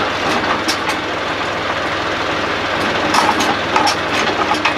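Tractor engine idling steadily, with several sharp metal clanks and knocks as the rear scrape blade is swung on its pivot into the straight position.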